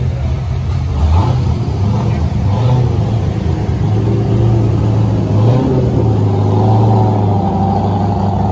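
Audi RS6 Avant's twin-turbo V8 running at low revs as the car rolls slowly by: a steady, deep engine note that swells a little about a second in and again near the end.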